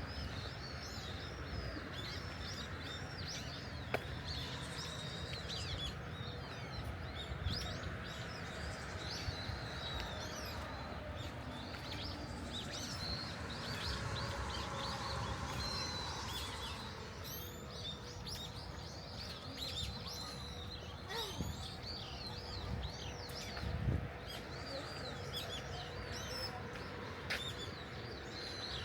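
Many small birds chirping, short quick calls one after another, over a steady background of outdoor noise.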